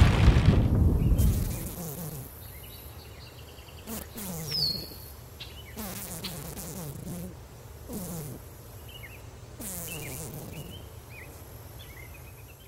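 Rain and thunder fading out over the first two seconds, giving way to a quiet nature ambience of short high chirps, insect-like, with a few low calls that fall in pitch and one brief falling whistle about four and a half seconds in.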